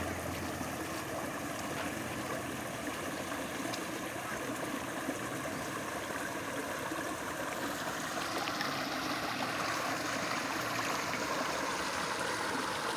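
Shallow muddy stream running steadily past a mesh fish trap, a rushing, rippling water sound that gets a little louder in the second half.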